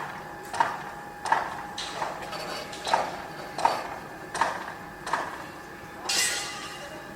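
Construction site noise: a regular series of sharp knocks, about three every two seconds, over a steady machine hum, with a short hissing burst near the end.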